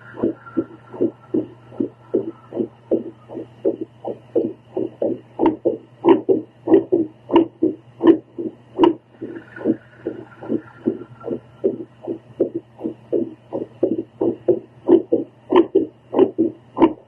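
A woman's heartbeat heard through a home Doppler monitor, beating fast in an uneven run of stronger and weaker pulses that the uploader calls a very irregular heartbeat rhythm. A steady low hum runs underneath.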